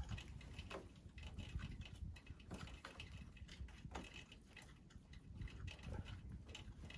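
Faint, scattered small metal clicks and scrapes of a nut being spun off a bolt by hand.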